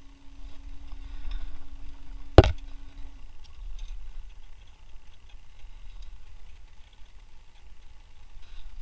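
Hand work on a crank pulley holder and its bolts at the front of a Toyota 4.7 V8. One sharp knock comes about two and a half seconds in, among faint light handling ticks, while a steady low hum stops about three seconds in.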